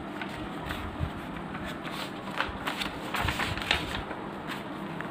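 Paper rustling as a page of a spiral-bound notebook is handled and turned, with a few sharper rustles in the second half.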